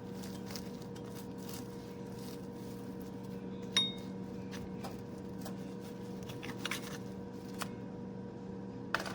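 Light handling noises over a steady low hum: scattered small clicks and taps, and one sharp clink of dishware about four seconds in that rings briefly.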